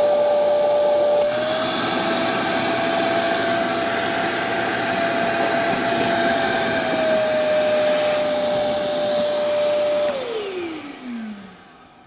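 Stealth ECV05P1 5-gallon wet/dry shop vacuum running, its hose sucking water out of a bucket. The motor's whine steps up slightly about a second in and settles back about seven seconds in, as the bucket empties. The vac is switched off about ten seconds in, and its whine falls away as the motor spins down.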